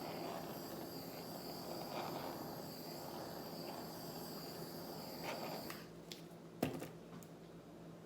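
Handheld butane kitchen torch hissing steadily with a faint high whistle while it is played over wet acrylic paint to raise cells. It cuts off about six seconds in, and a single sharp knock follows.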